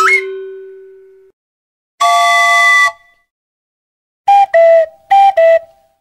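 A run of comedy meme sound effects. The end of a wobbling rising whistle comes first, with a low tone fading out over the first second. About two seconds in there is a held chord-like blast lasting about a second, and near the end a high-then-lower two-note tone plays twice.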